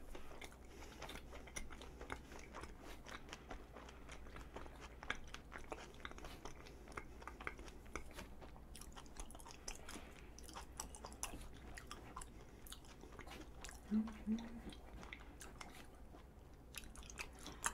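Close-miked chewing of a soft strawberry glutinous rice cake with red bean filling: quiet, sticky mouth clicks and smacks throughout. A brief low hum comes about fourteen seconds in.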